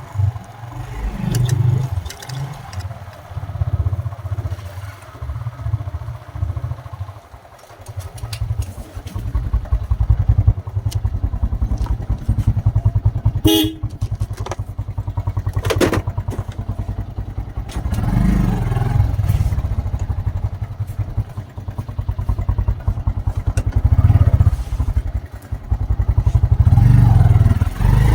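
Farm tractor engine running while the tractor is driven, a steady low pulsing throb with some clatter.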